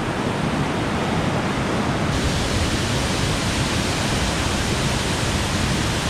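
Twin waterfall, water rushing steadily: a dense, even noise that spreads from low to high and keeps the same level throughout.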